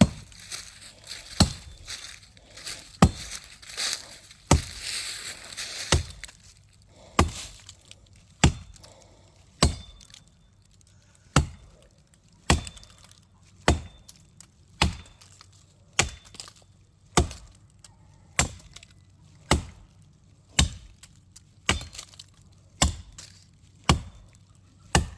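Steady chopping into wood, sharp single strikes a little under one a second, as from an axe. A hissing rush of noise comes between about four and six seconds in.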